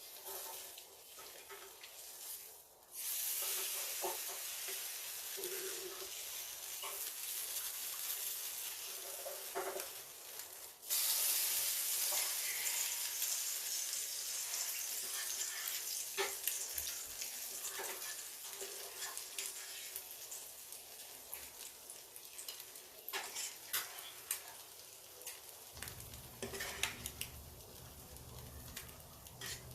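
Food sizzling as it fries in a pan. The sizzle starts suddenly, gets louder all at once partway through, then slowly dies down, with scattered clicks of a utensil near the end.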